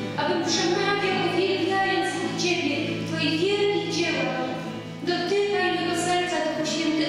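A woman singing a worship song into a microphone, with long held notes over a steady low accompaniment.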